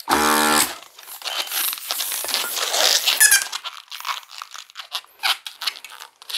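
Electric balloon inflator runs for under a second, inflating a 160 latex modelling balloon, then the latex balloon rubs and squeaks as it is handled, with one sharper squeak about three seconds in.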